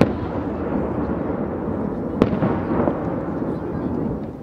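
Aerial fireworks shells bursting: a sharp bang at the very start and another about two seconds in, with a continuous low rumble between them that fades toward the end.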